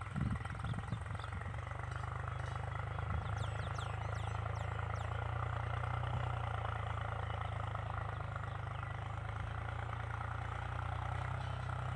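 A steady, low motor hum, like an engine running at idle, with a few brief high falling chirps about three to five seconds in.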